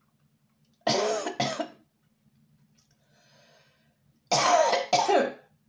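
A person coughing hard: two bouts of two coughs each, about three seconds apart, clearing food caught in the throat.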